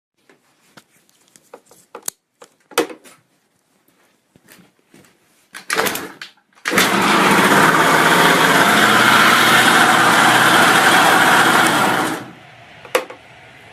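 Piaggio Typhoon 125 scooter's two-stroke engine starting after a few clicks of handling and a brief burst of cranking. It runs steadily at a loud level for about five seconds, then cuts off. It is started on the newly rewired ignition switch.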